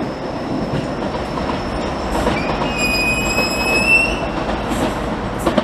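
Keio 8000-series train pulling away down the line, a steady rumble and clatter of wheels on rail. Midway, a thin high whine rises slightly in pitch for about two seconds.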